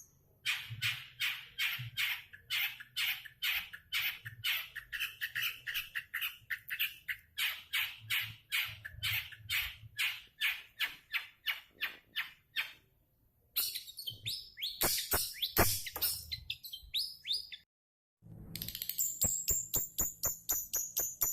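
Long-tailed shrike (cendet) calling: long runs of rapid, harsh repeated notes, about three to four a second, broken twice by short pauses.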